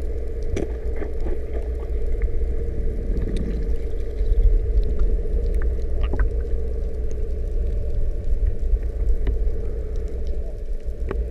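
Boat engine idling, heard underwater through the hull and water: a steady low rumble with a constant hum, and scattered faint ticks.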